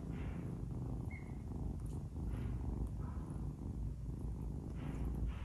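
Kitten purring, a steady low rumble with breathy swells that come and go, while it plays with a person's fingers.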